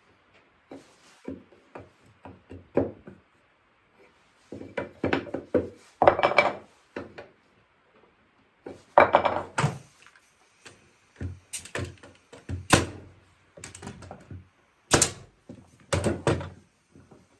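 Oak chair parts being handled on a workbench: irregular wooden knocks and thunks with short scraping and rubbing, several sharp, loud knocks in the second half.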